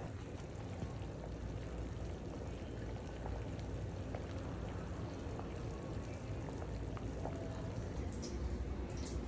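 Thick tomato sauce bubbling at a simmer in a large stainless pot, a steady low bubbling with scattered small pops. A few short rustles near the end.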